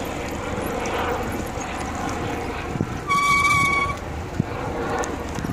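Helicopter flying overhead, its rotor and engine making a steady noise. About three seconds in, a short, steady high tone sounds for under a second.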